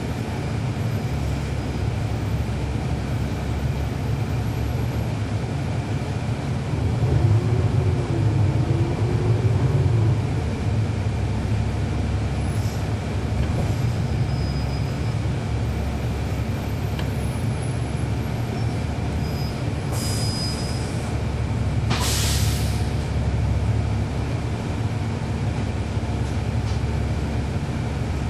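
Cabin sound aboard a NABI 416.15 transit bus with its Cummins ISL9 inline-six diesel running, a steady drone of engine and road noise. It grows louder for a few seconds about a quarter of the way in. About three-quarters of the way through comes a short, sharp burst of air hiss from the air brakes.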